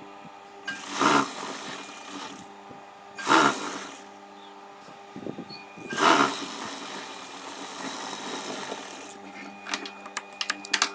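Industrial sewing machine stitching a folded hem in three short bursts, about one, three and a half and six seconds in, over the steady hum of its idling motor. After the third burst it runs on more softly for a few seconds, and a quick run of sharp clicks comes near the end.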